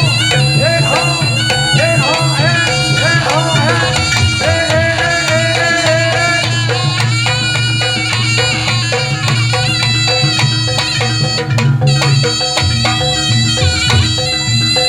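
Javanese barongan accompaniment music: a reedy, shawm-like wind instrument plays a melody with sliding, bending notes over percussion and a steady low drone.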